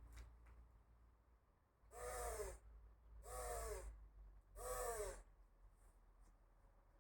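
Crow cawing three times, each caw harsh and about half a second long, its pitch arching up and falling away.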